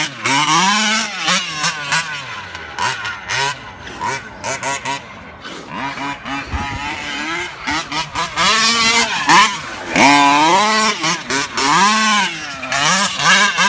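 Losi 5T 1/5-scale RC truck's two-stroke petrol engine with a tuned exhaust pipe, revving up and down again and again in short bursts of throttle. It drops back to a quieter, choppy run in the middle, then revs hard again.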